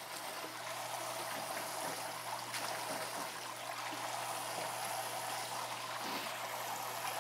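Kitchen tap running steadily into a sink, with a faint low hum underneath and a few light clicks.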